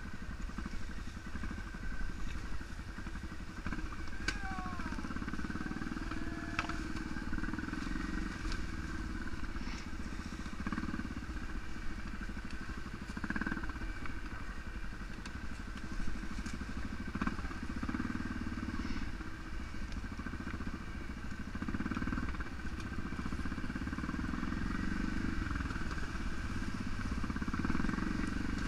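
ATV engine running off-road, its note swelling and easing off every few seconds as the throttle is worked, with scattered clicks and crackles over it.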